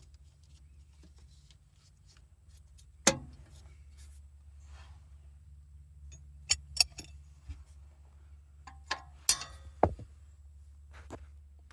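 Hand tools and starter bolts clinking and knocking against metal under a car while the starter is unbolted. Several sharp separate clinks: one about three seconds in, then a cluster of five or six between about six and ten seconds.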